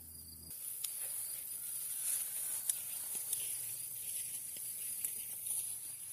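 Insects calling steadily at a high pitch, with a few faint clicks and rustles scattered through it.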